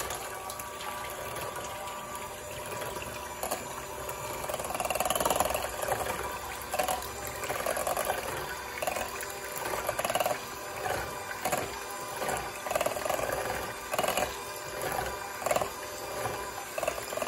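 Electric hand mixer running steadily, its beaters whisking raw eggs in a stainless steel bowl, with a wet swish that swells and fades a little faster than once a second as the beaters are moved around the bowl.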